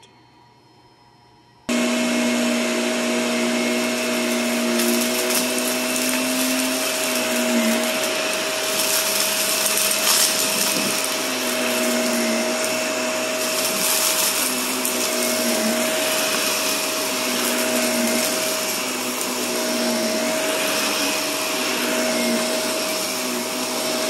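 Vacuum cleaner switched on about two seconds in, then running steadily as it sucks dust and lint out of carpet. Its motor pitch dips briefly every two to three seconds as it is worked back and forth.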